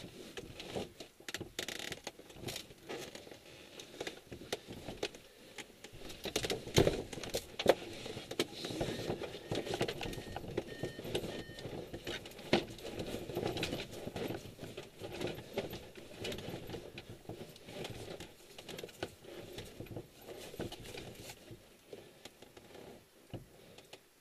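Close, irregular rustling and clattering with light clinks of metal, from the harness and the glider's cockpit fairing being moved and handled. It starts suddenly and stops about a second before the end.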